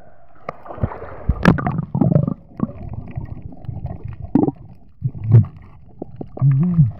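Muffled underwater sound from a camera held below the sea surface: gurgling water and bubbles with scattered knocks and clicks. Near the end there is a short low-pitched sound.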